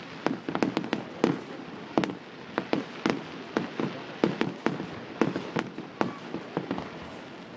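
Fireworks going off in a rapid, irregular string of sharp bangs, several each second.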